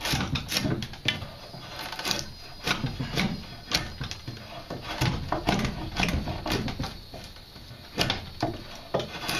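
Drawknife shaving wood off a split Osage orange bow stave clamped in a shaving horse: a run of rasping cutting strokes, about one to two a second and irregular.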